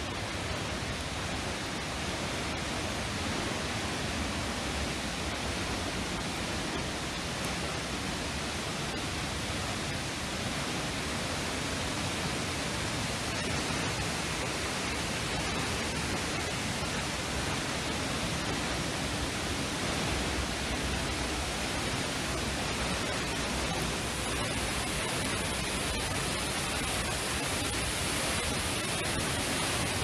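Steady rushing noise of a waterfall's falling water.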